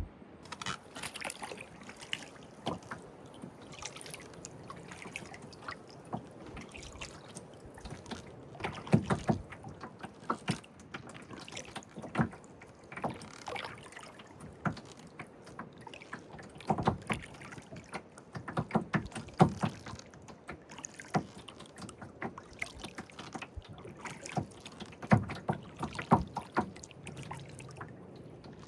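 Kayak paddling: the paddle dipping and splashing in the water, with irregular clusters of sharp knocks and drips.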